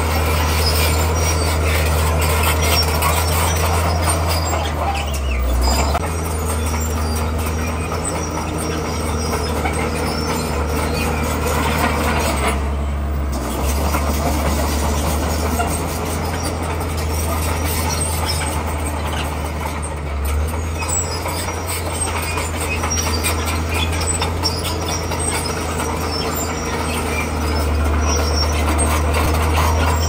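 Komatsu crawler bulldozer's diesel engine running steadily under load, with the clatter of its steel tracks and blade as it pushes a pile of broken stone.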